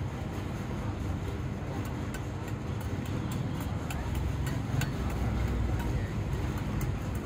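Steady low rumble of a running engine, with faint scattered clicks and scrapes of trowels working wet concrete.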